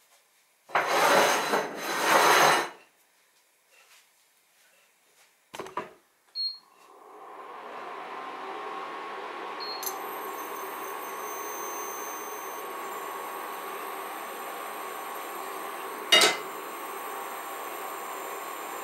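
Induction cooker switched on with a short beep; its cooling fan starts up and runs steadily, with a high-pitched whine from the coil under the empty ceramic pan once the power is set. A sharp clack near the end as wooden spatulas are set down, and two loud bursts of noise near the start.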